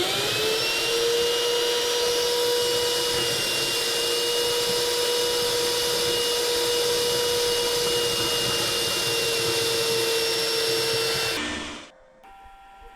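Vacuum motor switched on and spinning up with a rising whine, then running steadily as it sucks out the toilet drain flange, and switched off about eleven and a half seconds in.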